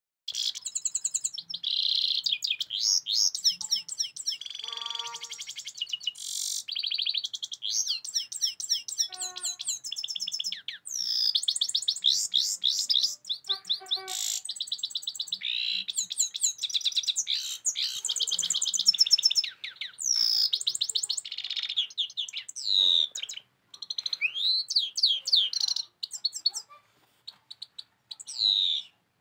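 Caged grey-crowned goldfinch singing a long, fast twittering song of rapid trills, chirps and quick pitch glides, with a few short pauses near the end.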